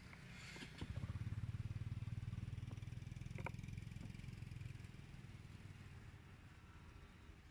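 A motor vehicle engine going by, loudest from about one to three seconds in and then fading away, with a few faint clicks.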